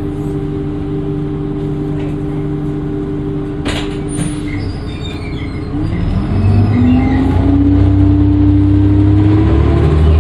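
Dennis Trident II double-deck bus engine running at a steady drone, with a sharp click about three and a half seconds in. From about six seconds in the engine note rises and gets louder as the bus accelerates, with a faint high turbo whistle over it.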